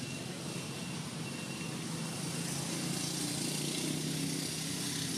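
A steady low motor drone, slowly growing louder, over a continuous hiss of background noise.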